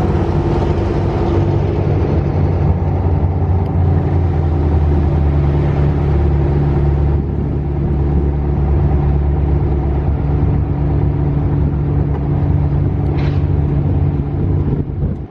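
Dune buggy engine running steadily, with wind rushing over the microphone.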